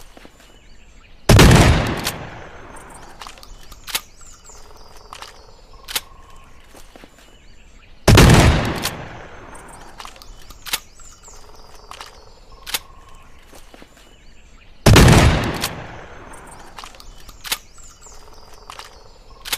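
Sawed-off Robust break-action double-barrel shotgun fired three times, about seven seconds apart, each shot a loud blast that dies away over about a second. Between the shots come pairs of quieter sharp clicks as the gun's action is handled.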